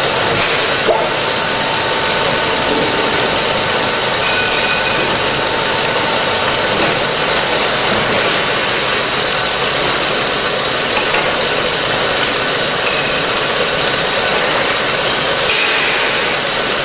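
40Z automatic rebar thread rolling machine running: its electric motor and rolling head give a loud, steady mechanical whir with faint steady tones, a brief knock about a second in and a change in the noise near the end.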